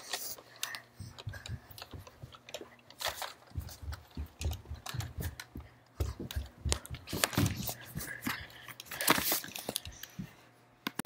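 Irregular thumps, rustles and clicks of footsteps and cardboard boxes being carried and jostled close to a handheld camera, loudest about nine seconds in.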